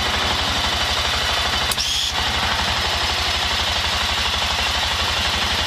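Arctic Cat Prowler 550 UTV's single-cylinder engine running steadily with a rapid, even thudding pulse, heard from inside its canvas cab with a steady hiss over it. A short click comes about two seconds in.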